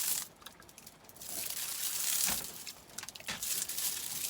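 Ethernet cable's outer plastic jacket being torn open with its nylon rip cord and pulled off: bursts of crinkling, tearing plastic with a few sharp clicks.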